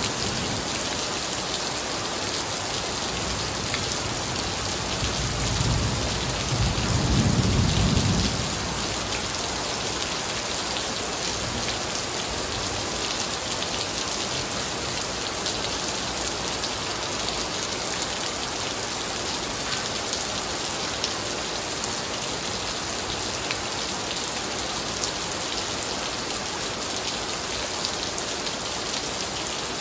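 Heavy rain pouring steadily onto wet patio tiles and garden foliage, with a low rumble of thunder swelling about five to eight seconds in.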